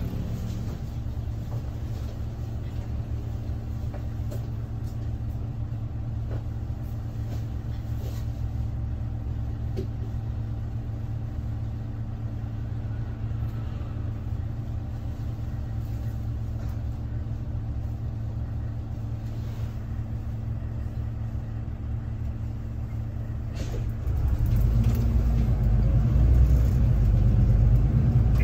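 Low-floor city bus engine idling steadily, heard from inside the cabin near the front. About 24 seconds in it grows louder with a deeper rumble as the bus pulls away.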